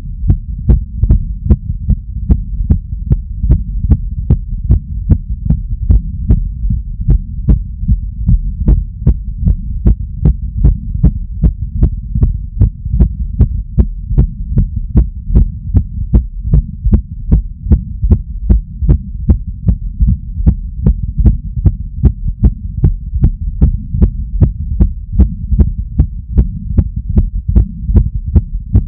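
Human heartbeat picked up by a chest piece strapped over the heart during cardio exercise: a fast, even train of sharp beats over a steady low rumble.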